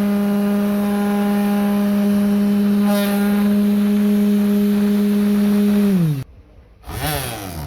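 Rewound 775 12 V DC motor running with a steady whine, then switched off about six seconds in, its pitch falling quickly as it spins down and stops. A short burst of noise follows near the end.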